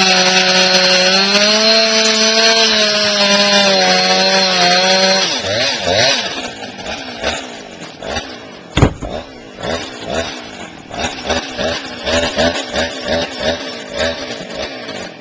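Freshly sharpened two-stroke chainsaw running at full throttle as it cuts firewood, its pitch sagging slightly as the chain bites. About five seconds in the throttle is let off and the engine falls to an uneven, pulsing lower speed, with one sharp knock partway through.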